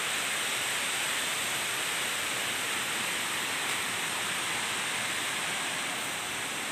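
Steady forest background: an even rushing hiss with a constant high-pitched drone above it.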